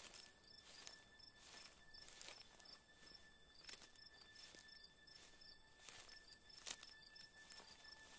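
Faint night ambience of insects: a steady high chirring with a small repeated chirp over it, and scattered soft clicks.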